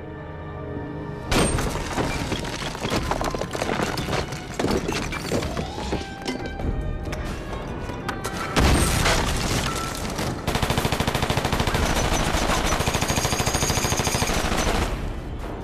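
Gunfire in a TV action scene over a dramatic music score: scattered shots and impacts, then a long run of rapid automatic fire in the second half.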